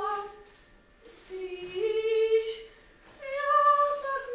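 A woman singing unaccompanied in short phrases of held notes. One phrase ends about half a second in, a second runs through the middle, and a third starts about three seconds in.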